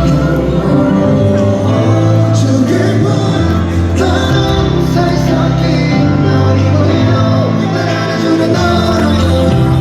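Live pop music from a concert, with sung vocals over the band.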